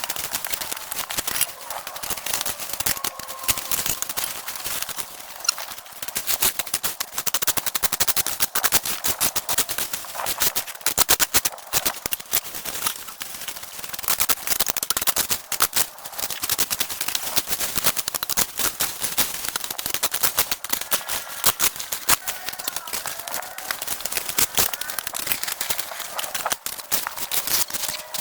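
Dense, rapid, irregular clicking and crackling, sharp and high, with faint wavering tones near the start and the end.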